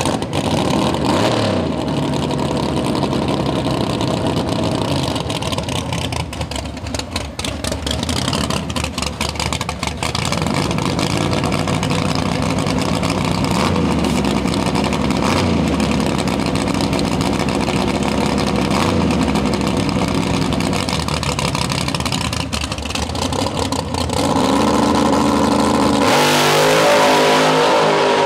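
A 1988 Fox-body Mustang drag car's engine idling choppily with rapid popping and blipping its revs on the start line. It builds revs in steps, then launches near the end, running at full throttle with the pitch climbing as it pulls away.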